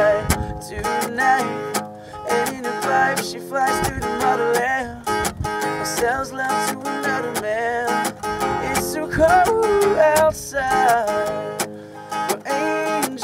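A man singing a slow melody while strumming an acoustic guitar, played live.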